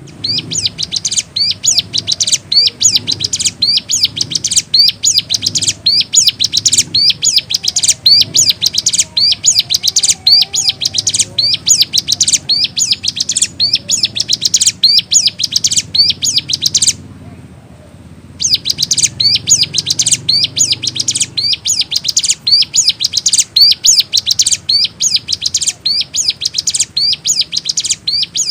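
Ciblek gunung, a small prinia songbird, singing non-stop in fast runs of sharp, high chirping notes about three or four a second. The song breaks off for about a second around two-thirds of the way through, then resumes.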